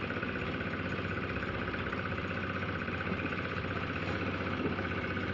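An engine running steadily at an even speed, with a low, fast pulsing hum.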